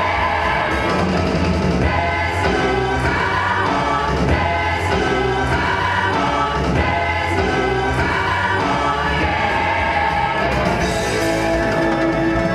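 Music with a choir of voices singing.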